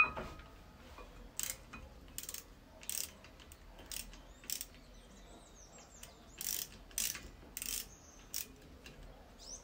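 Hand ratchet being worked on the front brake caliper bolts of a VW Gol G6: short bursts of metallic ratchet clicking, about ten strokes at an uneven pace. A louder metal clink with a short ring comes right at the start.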